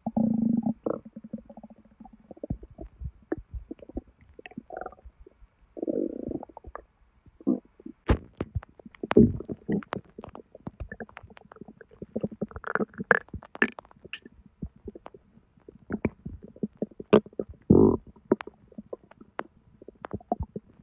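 Close-up belly gurgling from active digestion after hot sweetened tea, in a constipated gut: irregular bubbling pops and short gurgles, with longer rumbles near the start and near the end.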